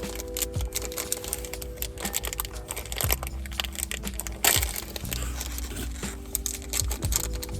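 Crinkling and rustling handling noise made of dense, irregular sharp crackles, one louder crackle about halfway through, over a few steady low held tones.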